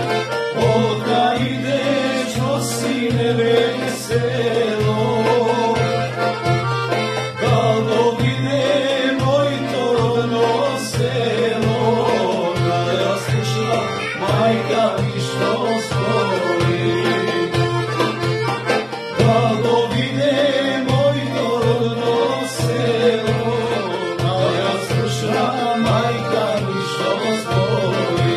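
Instrumental passage of a Macedonian folk song, led by accordion over a steady low rhythmic beat.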